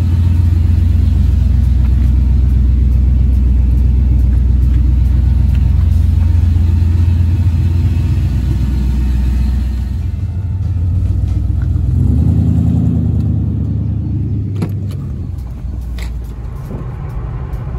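Car engine running close by with a loud, deep, steady rumble; around twelve seconds in it briefly rises in pitch, then the sound fades.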